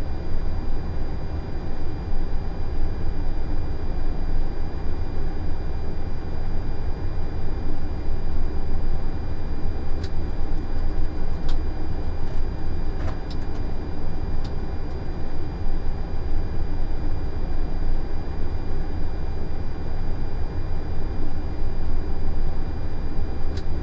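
Steady flight-deck noise of an Airbus A330-300 on final approach with gear and flaps extended: a constant rush of airflow over a deep rumble, with faint steady high tones. A few faint clicks come partway through and again near the end.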